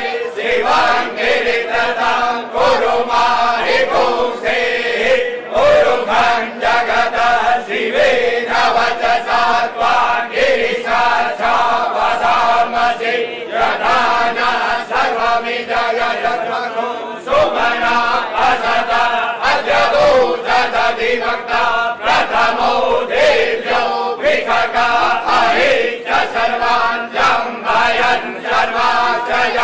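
Male voices chanting together in a ritual, devotional style over a steady drone.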